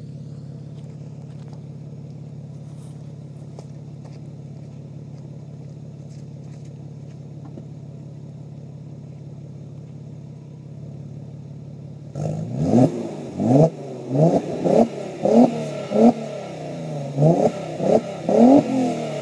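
Audi A6 2.7 biturbo twin-turbo V6 exhaust, idling steadily, then about twelve seconds in revved in a string of quick throttle blips, each rising sharply and dropping back to idle, about ten in all.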